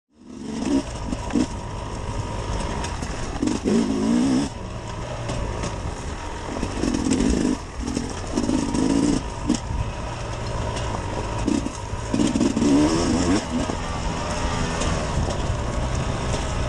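Sherco SE 300 Factory two-stroke enduro motorcycle engine being ridden hard, revving up and dropping off again and again as the throttle is worked.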